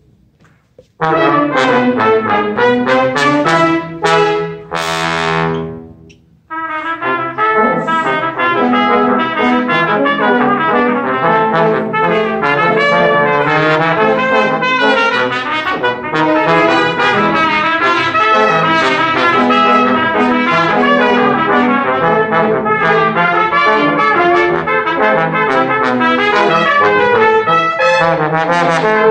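Brass quartet of two trumpets, French horn and trombone playing a fast, lively tune. The playing starts about a second in, falls through a descending run, breaks off briefly about six seconds in, then carries on in quick continuous notes.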